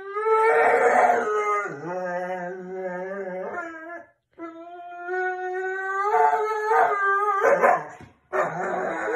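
A dog howling for attention: three long, drawn-out howls with two short breaks between them.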